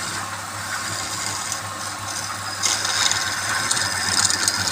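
Wood lathe running with a steady motor hum while a tool scrapes the spinning wood, the scraping hiss growing louder a little past halfway.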